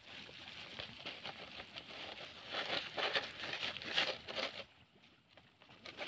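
Crumpled plastic waste and a thin plastic carrier bag crinkling and rustling as the muddy plastic is pushed into the bag. The crinkling is thickest in the second half and dies down about a second before the end.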